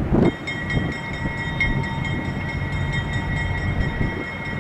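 Steel mill switcher locomotive moving slowly, its diesel engine rumbling low under a steady, high-pitched metallic squeal from the wheels on the rails. The squeal sets in with a low thump just after the start and holds, pulsing slightly, until just before the end.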